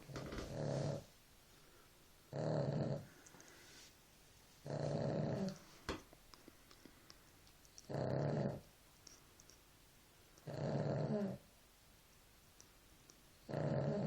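A sleeping dog snoring: six buzzy, rhythmic snores, each just under a second long, every two to three seconds.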